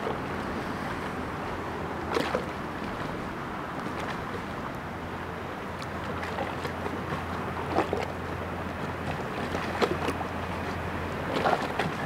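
Low steady drone of an inland motor cargo barge's 800 hp Caterpillar diesel as the ship approaches under way, over the steady rushing of its bow wave. A few short sharp noises stand out now and then.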